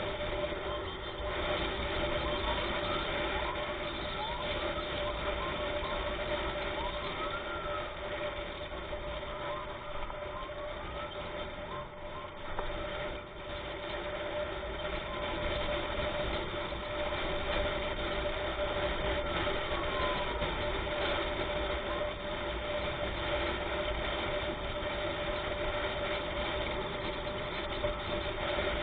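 Vehicle running along the road, a steady hum of engine and road noise, with a faint emergency siren sweeping up and down now and then.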